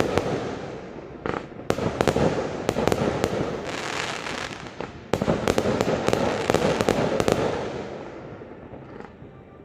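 Fireworks going off: sharp bangs over dense crackling, in two surges, the second starting suddenly about halfway through, then dying away near the end.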